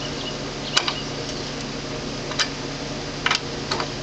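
A few separate sharp metal clicks as a terminal screw is tightened down on a wire in an electrical breaker panel, over a steady low hum.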